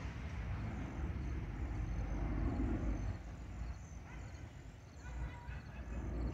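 Jet noise of an Airbus A321-231's IAE V2500 engines fading to a low rumble as the airliner climbs away, with faint high chirps above it.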